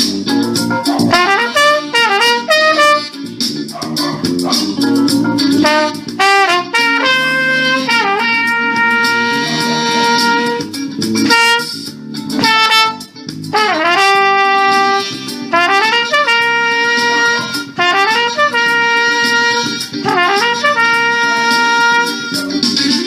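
Trumpet playing a jazz solo over a band backing, with notes scooped and bent at their starts and several long held notes.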